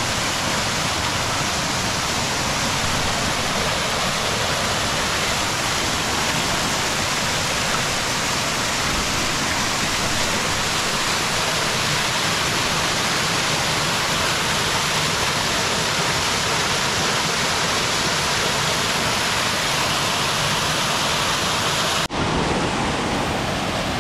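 Small waterfall: water pouring down onto rocks, a steady rushing splash. About two seconds before the end there is a brief break, after which the sound goes on with a slightly different tone.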